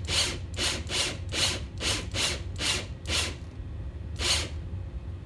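Cordless drill twisting a doubled length of wire held taut with pliers, running in short, evenly spaced bursts about three a second. The bursts stop a little past the middle, and one more comes about a second later.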